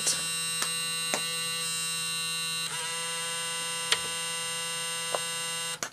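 Small cassette-loading (cradle) motor of a Tascam DA-30 mkII DAT deck running continuously with a steady electric whine and a few light clicks, cutting off abruptly near the end. Its tiny drive belt has perished, so the motor runs without loading the tape.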